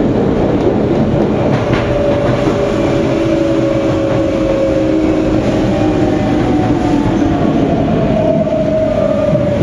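Tokyu 9000 series electric train running, its GTO-thyristor VVVF inverter whining in a few steady tones that slide slowly downward in pitch over the rumble of wheels on rail, as the train slows.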